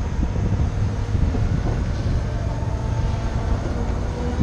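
Harley-Davidson LiveWire electric motorcycle being ridden, heard mostly as wind rumbling over the microphone. The electric motor's faint whine shifts in pitch in the second half.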